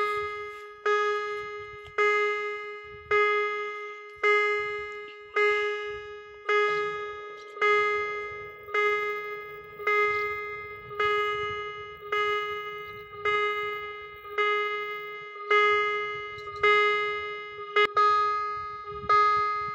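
Railway level-crossing warning bell striking one ringing tone about once a second, each strike fading before the next. The crossing is active, warning that a train is approaching.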